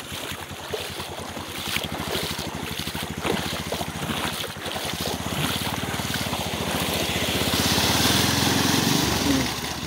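Motorcycle engine running as the bike rides through a stream, with water splashing. The engine grows louder from about halfway through, with more splashing hiss near the end, then eases off just before the end.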